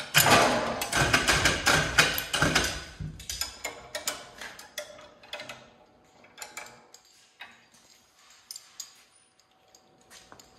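Hand ratchet on the engine stand's mounting head, clicking rapidly for about three seconds, then in scattered single clicks and light metal knocks.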